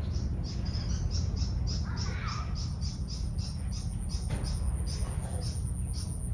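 Small birds chirping: short high chirps repeated about three or four times a second, over a steady low rumble.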